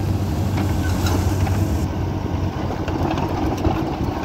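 Kubota KX91-3 mini excavator's diesel engine running steadily, with a few light clicks over the top.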